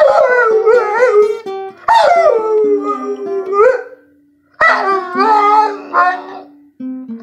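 A dog howling along to a guitar being picked: three long, wavering howls with short breaks between, over single plucked notes. The howls stop briefly about four seconds in.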